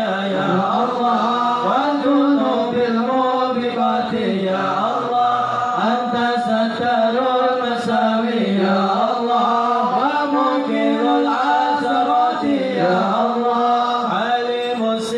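A group of men chanting Islamic devotional praise together, the voices held in long melodic lines that rise and fall.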